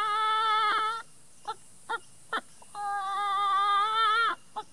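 A man imitating a chicken with his voice: two long, drawn-out calls held on one pitch, with a few short clucks between them.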